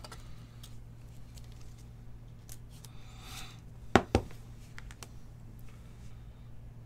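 Trading cards being handled on a tabletop: soft slides and small clicks, with two sharp taps in quick succession about four seconds in. A steady low hum runs underneath.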